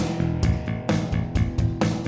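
Background music with guitar and a steady beat, about two beats a second.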